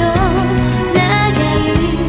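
Late-1990s Japanese pop song playing: a melody line with vibrato over a full backing, with sustained low notes that change about a second in.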